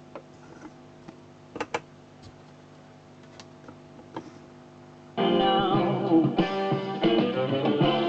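Dansette Popular record player in a pause between songs: a steady low hum with a few sharp clicks, then about five seconds in the next rock-and-roll track starts loudly with guitar.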